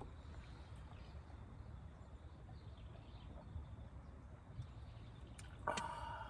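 Faint outdoor background with a low steady rumble and a few light clicks. Near the end, a held note of background music comes in.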